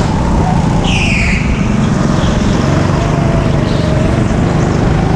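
Go-kart engines running hard at racing speed, heard from a helmet-mounted camera, with a brief high squeal about a second in.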